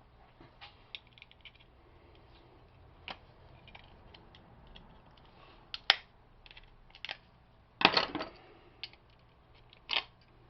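Small metal clicks and scrapes of a screwdriver prying at a steel snap ring on a brass door-handle part, with a few sharper clinks in the second half.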